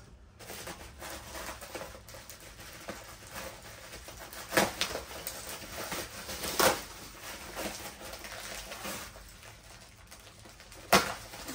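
Plastic bubble wrap rustling and crinkling as it is cut and pulled off a motorbike front-fork assembly, with a few sharp snaps in the middle and near the end.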